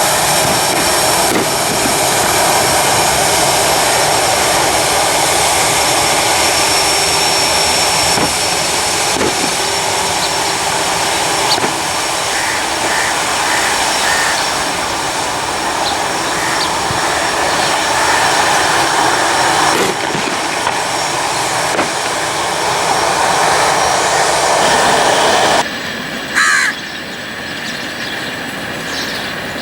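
Jet airliner engines, a loud steady rush that cuts off suddenly near the end. A crow then caws a couple of times.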